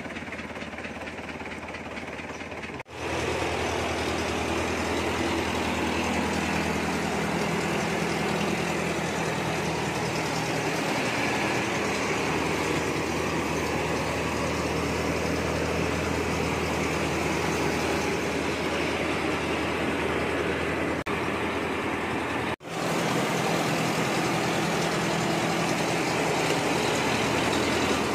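Engine-driven rice mill running steadily while milling palay: a constant low engine hum under the hiss of grain and husk moving through the machine. The sound is quieter for the first few seconds and drops out briefly twice.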